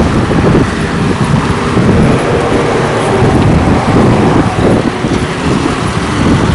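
Road traffic noise from vehicles passing on the road, mixed with wind on the microphone, heard as a steady low rumble without clear tones.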